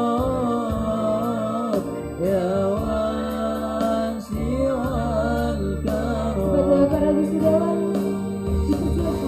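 Male students singing an ornamented, wavering melody over keyboard accompaniment with a steady beat.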